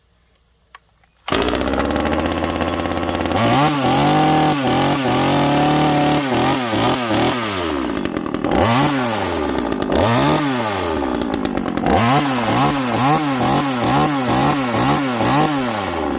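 TimberPro 25cc top-handle chainsaw's small two-stroke engine catching suddenly about a second in, then being revved up and down over and over, with quicker throttle blips near the end. The owner judges that it is running way rich.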